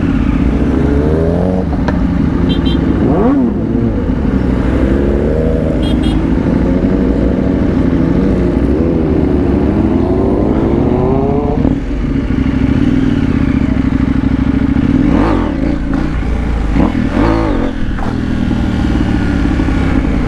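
Motorcycle engines running as a group of sport bikes rides together, with several rising revs as they accelerate. One long rise cuts off sharply about twelve seconds in. The rider's own engine and road noise run steadily underneath.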